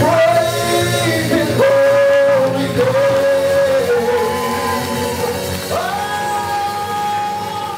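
Live band music: a man sings long held notes over electric keyboards, the last note held for about two seconds near the end.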